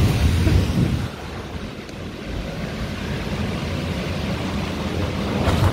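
An inflatable's electric blower fan running, a steady noisy rumble, louder in the first second while the phone is pressed close to the vinyl. A single thump about five and a half seconds in.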